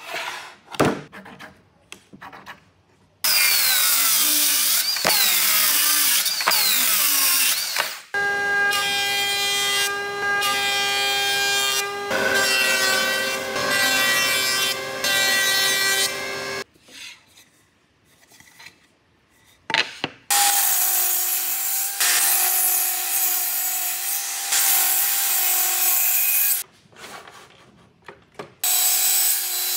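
Woodworking power tools working walnut boards in several runs of a few seconds each, with short pauses between them that hold light knocks of boards being handled. About halfway through, a thickness planer runs with a steady motor tone as boards feed through it, and near the end a table saw starts up.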